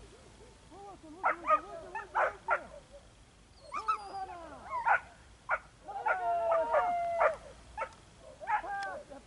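Leashed tazi sighthounds whining and yelping in short, repeated cries with rising and falling pitch. The dogs are straining at the leash, eager to be let loose on the chase.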